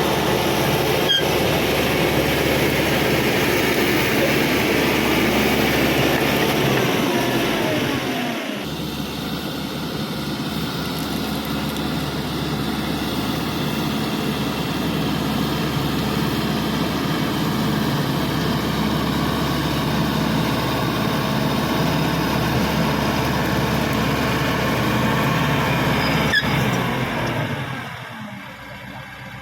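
Cat D5K XL bulldozer's diesel engine running steadily under work. It drops off sharply near the end.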